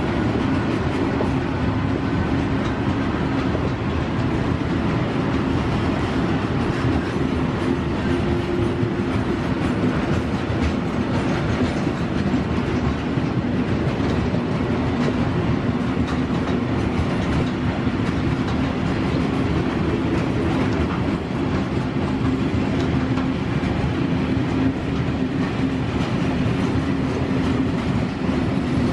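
Long freight train of covered bogie hopper wagons rolling past, its steel wheels running on the rails with a steady, unbroken noise.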